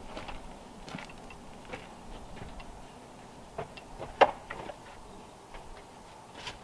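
Split firewood being stacked by hand, pieces of wood knocking against the pile in a scatter of light clicks and knocks, with one sharper knock about four seconds in.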